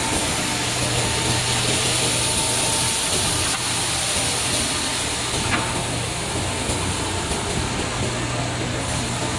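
Automatic sanding and polishing line for hand saw blades running: a steady low electric-motor hum under a broad hiss of belts and conveyor. A single brief tick about five and a half seconds in.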